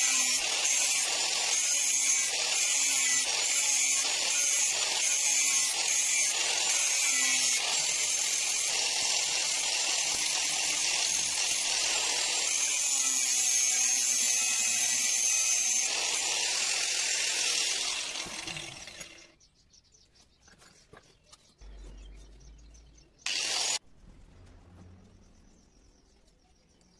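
Handheld angle grinder grinding a steel knife blank cut from a used disc blade, a steady high-pitched grinding hiss that winds down and stops about 18 seconds in. After it a short loud burst of noise stands out in the quiet.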